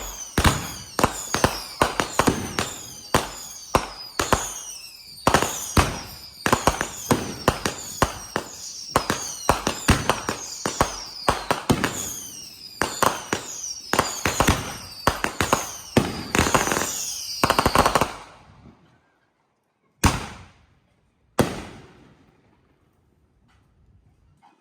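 Fireworks firing in a rapid volley of sharp bangs, many followed by falling whistles. The volley stops at about 18 seconds, and two single bangs follow a few seconds later.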